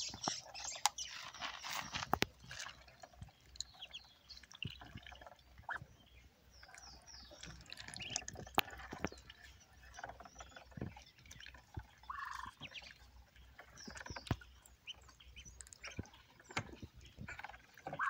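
Muscovy ducklings peeping in short high chirps while they dabble and drink from a shallow tub of water, with scattered sharp clicks and small watery splashes as their bills work the water.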